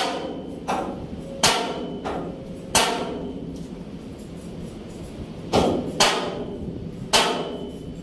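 Hammer blows on metal, about eight single strikes at uneven intervals, each ringing briefly, some lighter than others; a pause of a couple of seconds in the middle.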